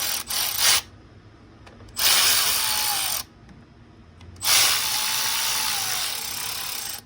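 Power tool running in three bursts, each starting and stopping sharply, the last the longest, with a faint motor whine under the hiss. The tool is snugging down the bolts of a freshly RTV-sealed gasket.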